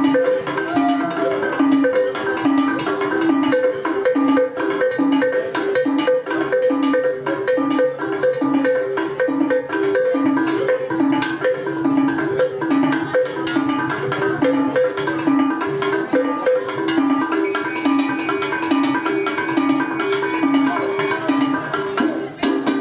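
Small tuned African percussion instruments played by two kneeling musicians: a fast, repeating, interlocking melody of short, bright pitched notes.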